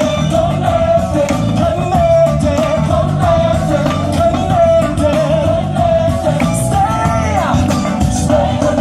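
Loud live band music with singing: a voice holds long, wavering notes over drums and instruments, with a downward slide in pitch about seven seconds in.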